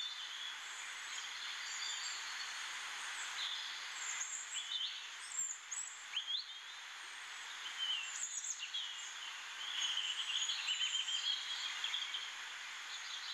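Small birds chirping over a steady hiss of ambient noise, with short gliding calls scattered throughout and a busier run of chirps near the end.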